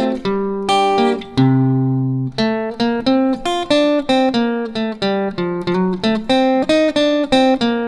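DeArmond X-135 hollow-body archtop guitar played solo in chord-melody style: a chord held about a second and a half in, then a run of short plucked chords about three a second. The sound is a blend of the guitar's pickup signal and a microphone on its body, with plate reverb and light compression.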